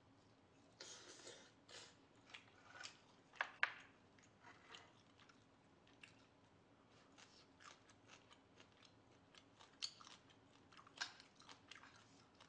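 Soft chewing and mouth sounds of someone eating boiled duck meat: a scatter of faint, irregular clicks and smacks.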